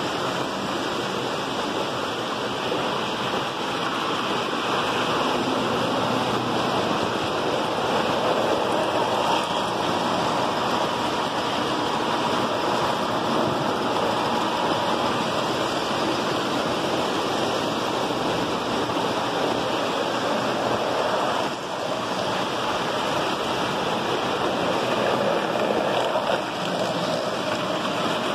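Model trains running on tubular three-rail O-gauge track, their metal wheels and motors making a steady rushing rumble.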